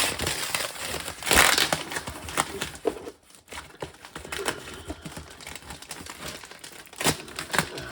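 Packing paper rustling and crumpling as a wrapped item is unwrapped by hand, in irregular handling noises that are loudest about a second and a half in, pause briefly, and pick up again near the end.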